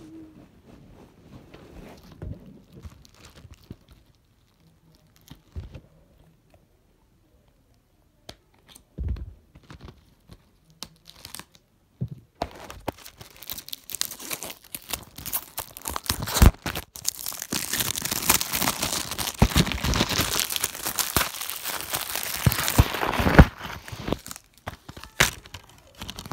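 Plastic shrink wrap being torn and crinkled off a new DVD case, a dense crackling that starts about halfway through, after a few scattered handling clicks.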